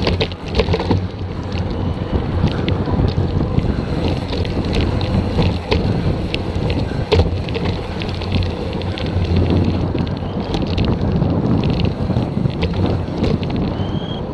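Wind rushing over the microphone of a handlebar-mounted action camera and mountain bike tyres rumbling on a dry dirt descent while the rider coasts, with frequent clicks and rattles as the bike goes over bumps.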